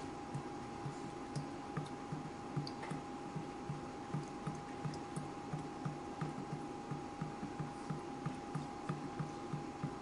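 Water dripping in a steady rhythm of about three drops a second, with scattered fainter ticks of higher drops. A thin steady tone runs underneath.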